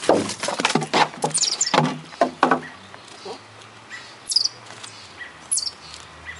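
A quick run of close knocks and rustles in the first couple of seconds, then a few short, high bird chirps that fall in pitch, spaced a second or so apart.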